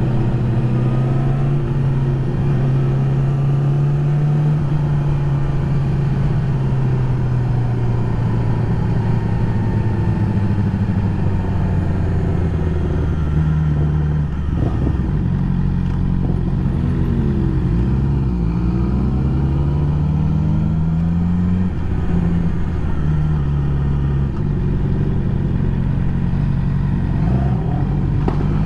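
2020 Yamaha YZF-R6's inline-four engine running at steady cruising revs while ridden. The pitch shifts several times about halfway through and again later as the throttle changes.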